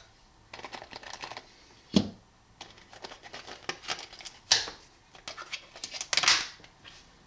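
Cardboard packaging card being cut with a utility knife and torn by hand to free a pair of pliers: a string of scratchy rasps and crinkles, with one sharp click about two seconds in.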